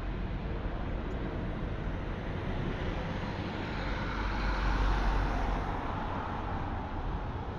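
Road traffic on a city street, with a vehicle passing close by about five seconds in: its noise swells and then falls in pitch as it goes by.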